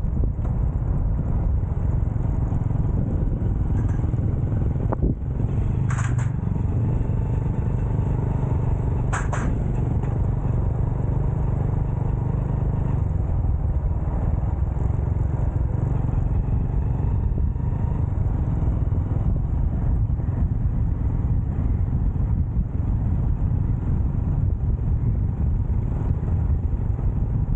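Motorcycle on the move: a steady low rumble of engine and road noise, with two short sharp sounds about six and nine seconds in.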